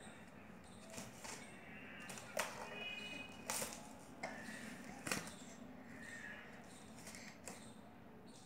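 Light knocks and taps of a plastic mesh basket being handled and pushed along a floor mat by a baby, about half a dozen sharp taps spread through.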